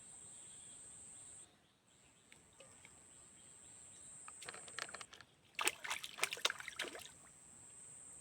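Water sloshing and splashing in a run of quick, irregular strokes from about halfway in, over a steady high-pitched buzz that drops out briefly near the start.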